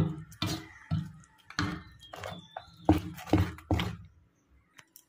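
Spoon stirring thick, wet malpua batter in a metal bowl: a run of wet squelches and scrapes, about two a second, that stop about a second before the end.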